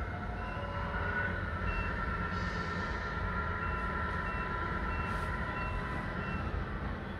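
Radio-controlled 1/14 Tamiya Mercedes-Benz 1850L truck backing up, with a steady engine-like rumble and an electronic reversing beeper. The beeper sounds once, then beeps regularly a little under twice a second from about halfway in.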